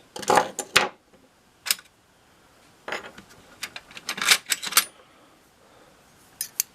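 Small loose metal tools clinking and rattling as they are picked through and set down: a few quick clinks at first, a single one, then a dense run of clinks in the middle and two more near the end.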